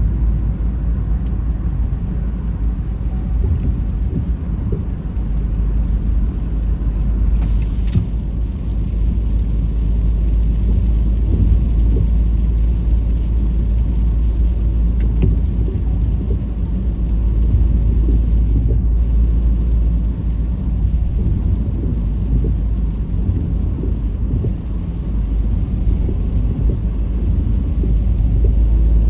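Car driving, a steady low rumble of engine and road noise that rises and falls a little with the traffic.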